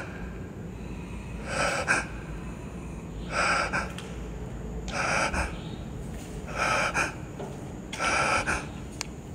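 A person breathing heavily close to the microphone: sharp, noisy breaths about every second and a half, over a low steady hum.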